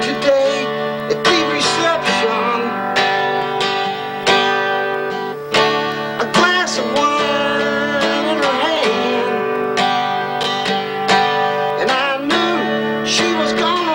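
Steel-string acoustic guitar strummed in steady chords, with a man singing along.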